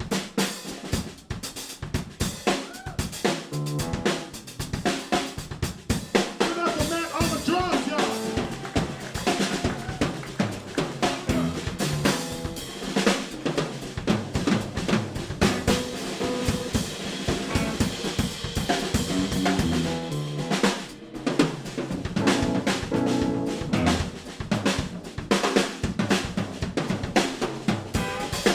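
Live blues band in an instrumental break with the drum kit to the fore: rapid snare and bass-drum hits and rim shots, with keys, bass and guitar playing along underneath.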